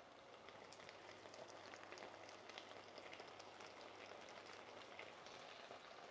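Sliced onions and bell peppers, sugared, sizzling faintly in a pan as they caramelize, with many small crackles and pops.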